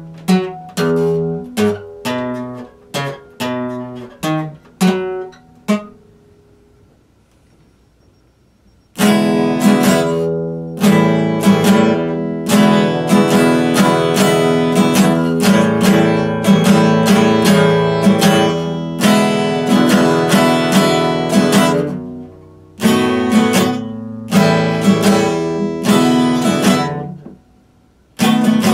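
Solo acoustic guitar played with fingers or a pick. It opens with separate picked notes and chords, about two a second, each left to ring. After a pause of a few seconds it moves into fuller, continuous strumming, breaks off briefly, carries on, then stops just before a last chord rings out near the end.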